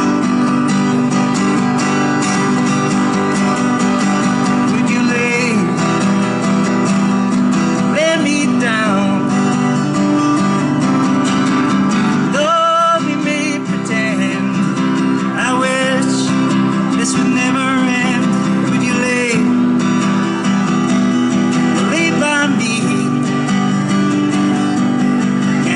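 Acoustic guitar strummed steadily under a harmonica played in a neck rack, in repeated phrases of wavering notes: an instrumental break in a busker's song.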